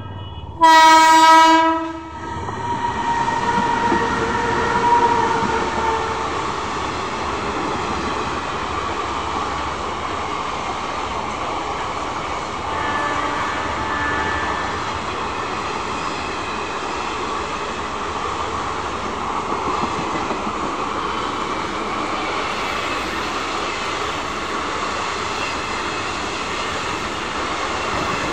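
A WAG12 electric locomotive sounds one loud horn blast lasting about a second and a half, then it and a long rake of NMG coaches pass close by: a steady rumble and clatter of wheels on the rails that builds over the first few seconds and then holds.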